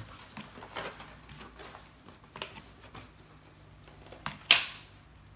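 Toy hairbrush stroking the synthetic hair of a Sunny Day doll styling head: faint soft rustles and light clicks, with one louder, sharper scrape about four and a half seconds in.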